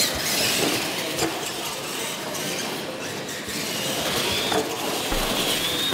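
Electric RC monster trucks racing on a dirt track: a steady whirring and clattering from their motors and gear drives, with tyres churning dirt, and a motor whine rising near the end.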